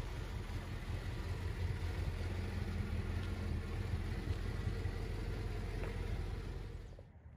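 1993 Chevrolet Corvette's 5.7-litre LT1 V8 idling steadily, dropping away about seven seconds in.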